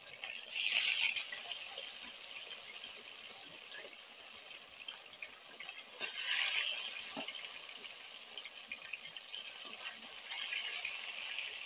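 Cornflour-coated potatoes deep-frying in hot oil, a steady sizzle with two louder surges, about half a second in and about six seconds in.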